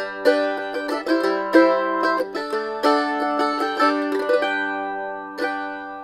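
Eastman MD615 F-style mandolin played solo, picking a quick run of notes and chords that ring over one another. A last chord is struck near the end and left to ring out.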